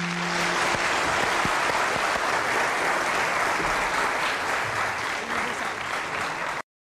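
Audience applauding at the end of a live song, with the song's final held note dying away in the first moment; the applause cuts off abruptly near the end.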